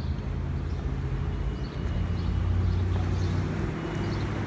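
Street traffic: a motor vehicle's engine running close by, a low steady hum that swells in the middle and eases off near the end, over general city street noise.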